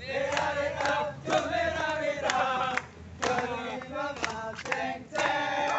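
A group of voices singing together in unison, with long held notes and short breaks between phrases about once a second.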